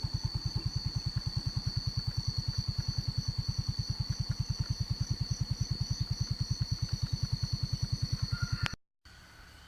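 Small motor scooter engine running with an even low pulsing of about ten beats a second, with a steady high whine alongside. It cuts off near the end.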